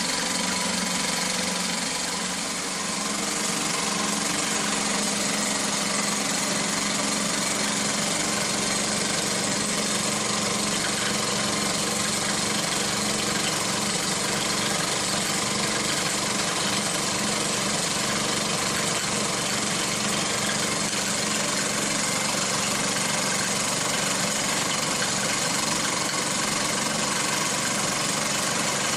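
Three small Meccano-style toy steam engines running together on live steam: a Mamod-made Meccano engine, its successor, and a vertical-boiler engine built in the old Meccano style. They make a steady, dense hiss.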